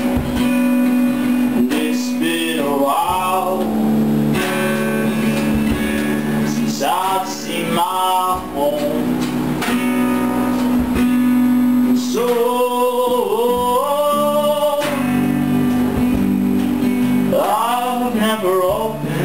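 A band playing live in the room: acoustic and electric guitars hold steady chords, with a melody line that slides in pitch coming in four times.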